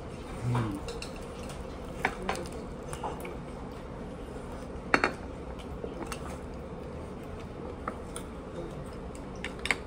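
Eating utensils clinking and tapping against plates and dishes at a meal, in scattered light clicks with a sharper clink about five seconds in and a couple more near the end, over a steady background hum. A brief low sound comes about half a second in.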